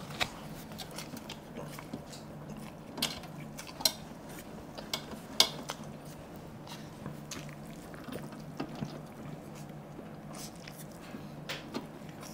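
Fingers scraping and tapping on a stainless steel plate while scooping fried rice by hand, with scattered sharp clicks, the loudest about five seconds in, along with eating sounds.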